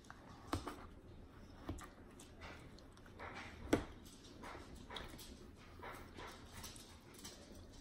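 Faint clicks and light scraping of a plastic fork cutting through a whipped-cream-topped sponge cake on a plate, with one sharper click a little after three and a half seconds.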